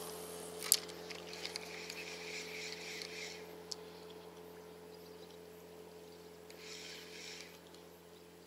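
Spinning reel during a bottom retrieve: a sharp click about a second in, then the handle cranked with a whirr for about two seconds, a pause, and another short spell of cranking near the end, the lure being stepped along the bottom.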